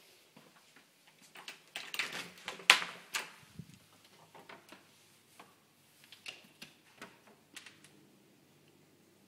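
A run of sharp clicks and knocks as a door is opened, loudest about two and a half seconds in, followed by a few lighter scattered clicks.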